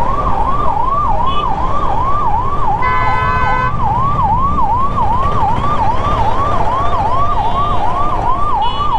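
An emergency-vehicle siren yelping in a fast up-and-down wail, about three sweeps a second, throughout. A vehicle horn honks once, briefly, about three seconds in. Wind and road noise rumble underneath from riding.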